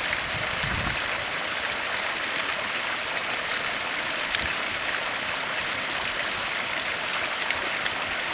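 Water from a Skippy biofilter spilling steadily over the rocks of a small pond waterfall, with a constant splashing and trickling.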